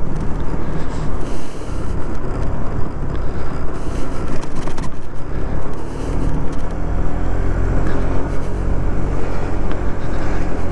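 Yamaha Majesty 155 scooter's 155 cc single-cylinder engine running steadily while riding, under heavy wind noise on the microphone.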